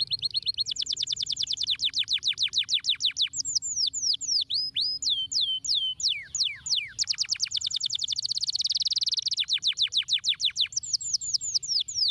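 Yellow domestic canary singing a long, continuous song of rapid trills: fast runs of repeated high notes that sweep downward, changing pace from phrase to phrase, with a buzzier, denser passage a little past the middle.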